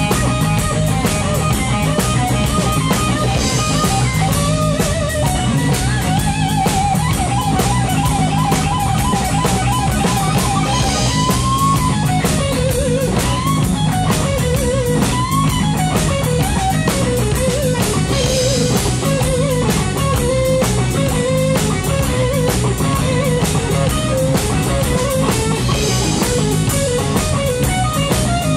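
Live rock band playing an instrumental passage: an electric guitar solo over bass and drum kit. About six seconds in the guitar holds one long note with vibrato, then from about twelve seconds plays quick runs of notes.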